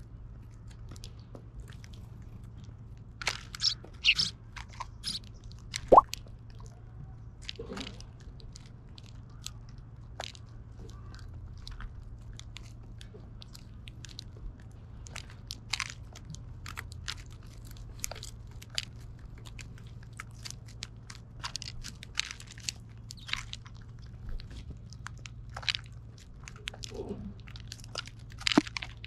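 Eurasian tree sparrows pecking and cracking seeds in a wooden feeding tray: irregular, crisp clicks and crunches, with a few louder clicks in the first six seconds.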